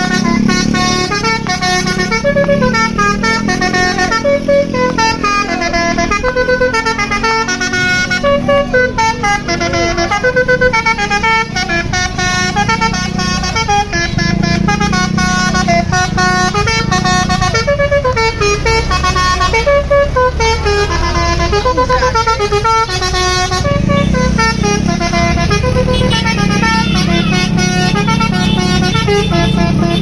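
Basuri-type telolet horn on a tour coach playing a continuous multi-note melody, over a steady low rumble.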